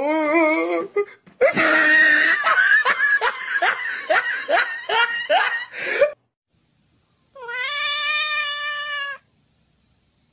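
Cat vocalising mixed with laughter: a wavering yowl, then a few seconds of rapid repeated pitched calls. After a short pause comes one long, steady meow.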